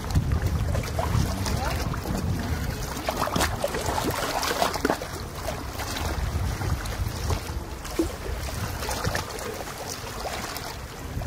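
Seaside ambience by the Mediterranean: wind rumbling on the microphone, with faint sea sounds behind it.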